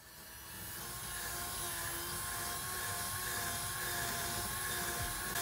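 Cordless drill/driver running steadily with a constant whine, driving a screw through the camper roof's edge to fasten the top to the lift arms. The whine builds up over the first second, then holds.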